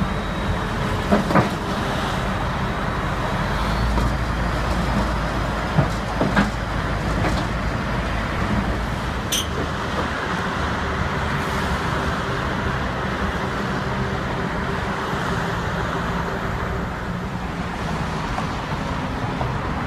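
LiuGong crawler bulldozer's diesel engine running steadily as the dozer crawls onto a lowboy trailer, with a few metal clanks about one and six seconds in, over passing road traffic.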